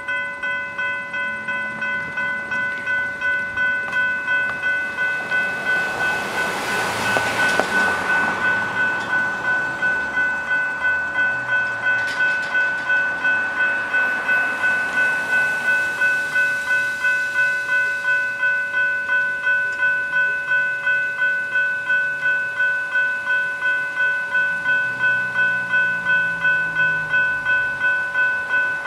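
Level-crossing electronic bell (General Signals Type 3 e-bell) starting up right at the beginning and then ringing a fast, even, repeating ding, the warning that the crossing has activated for an approaching train.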